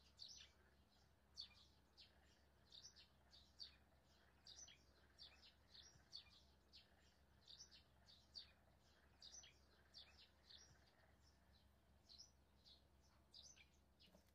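Faint bird chirping: many short, quick chirps a few per second, over a low steady hum.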